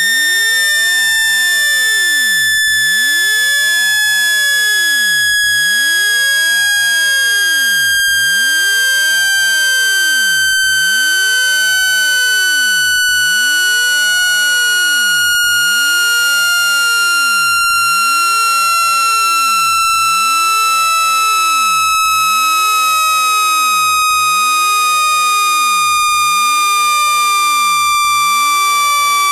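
Electronic speaker-cleaning tone: a loud, steady tone with strong overtones that slides slowly and evenly down in pitch, played to shake sand and dust out of a speaker.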